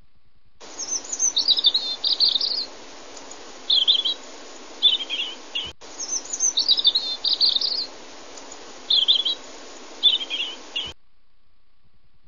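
Songbird singing in quick, bright chirping phrases over a light hiss. It is one short recording of bird song played twice back to back, starting and stopping abruptly with a sharp break in the middle.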